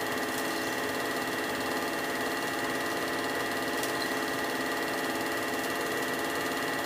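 Film projector running: a steady mechanical whir and clatter with a constant high whine, unchanging throughout.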